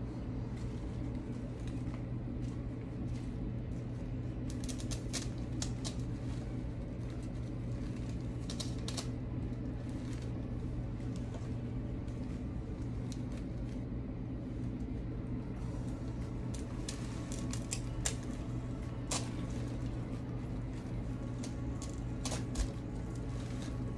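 Scattered light clicks and rustles of artificial rose stems being handled and fitted into a foam flower ball, over a steady low hum.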